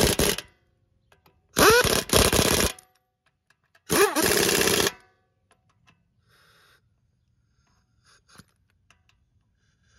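Impact wrench spinning lug nuts onto a wheel in short bursts, each starting with a rising whine: one cuts off about half a second in, then two more bursts of about a second each follow.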